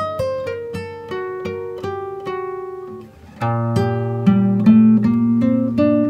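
Background music: an acoustic guitar picking a melody of single plucked notes, which drops away briefly about three seconds in and comes back louder and fuller, with a low bass note held underneath.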